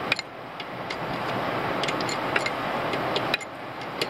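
Socket ratchet wrench clicking in short, irregular runs as a lower-unit bolt on a Suzuki DF90A outboard's gear case is tightened, over a steady hiss.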